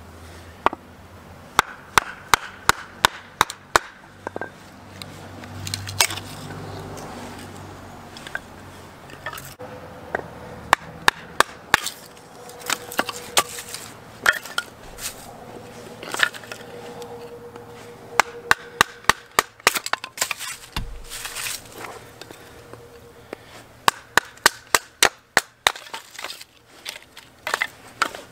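A wooden baton striking the spine of a fixed-blade knife to drive it through wood, splitting it into kindling: sharp wooden knocks in quick runs of several blows with pauses between, and wood cracking apart.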